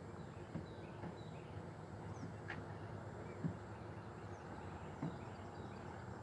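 A scooter rolling along a concrete path: a steady low rumble with a few small clicks and knocks along the way. Faint bird chirps sound over it.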